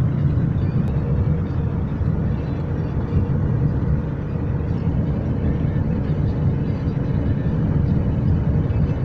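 Steady low rumble of a car driving, heard from inside the cabin on a very windy day.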